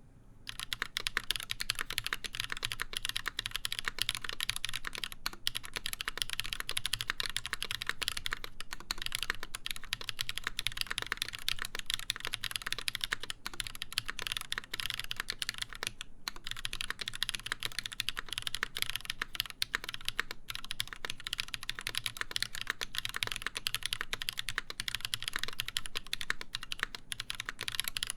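Steady fast typing on an Exclusive E8.5 mechanical keyboard with a full brass plate, Tribosys-lubed Holy Panda tactile switches and GMK keycaps: a dense stream of keystrokes that starts about half a second in, with a couple of brief pauses.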